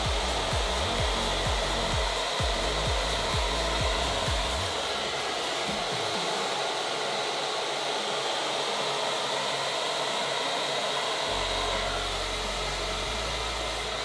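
BaBylissPRO Volare V1 hair dryer with its Ferrari-designed motor, running steadily on its highest setting and blowing air through hair on a round brush. Low gusty rumbles come and go in the first few seconds.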